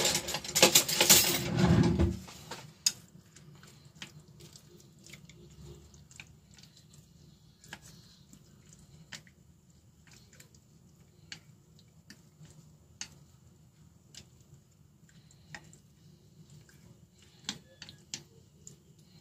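A loud clatter in the first two seconds, then scattered light clicks and taps of chopsticks against a ceramic plate as raw chicken wings are mixed in their marinade.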